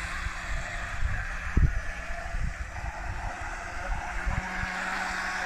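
3D-printed RC jet boat with a 30 mm waterjet running at about quarter throttle: a steady hum with a hiss of water spray. Wind buffets the microphone throughout, with the loudest bump about a second and a half in.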